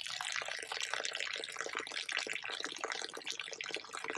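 Rinse water draining in a steady stream from the drain nozzle of an Avalon Bay EcoWash portable washing machine, splashing onto gravel ground.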